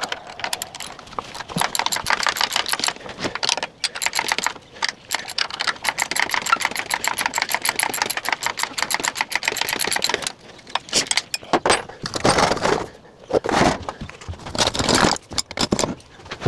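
Rapid metallic clicking and rattling of a tool working loose the top bolt of the electric dirt bike's rear shock. It runs almost continuously for about ten seconds, then comes in short strokes about a second apart.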